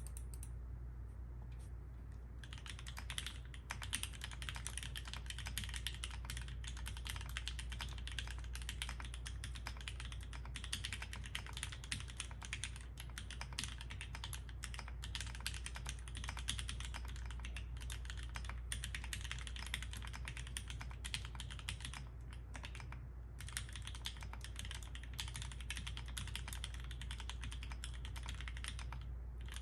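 Typing on an LZ Physix custom mechanical keyboard with lubed and filmed 67g Tangie switches, a carbon-fibre plate and GMK keycaps, recorded on a phone microphone. A fast, continuous run of keystroke clacks starts about two seconds in, with short pauses near the last third and just before the end, over a steady low hum.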